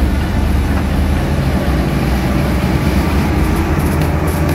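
Motor grader's diesel engine running steadily as its blade spreads gravel base material, with a few faint ticks near the end.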